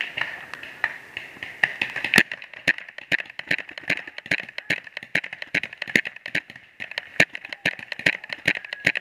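Paintball markers firing in rapid, irregular volleys, several sharp pops a second, with one louder crack about two seconds in.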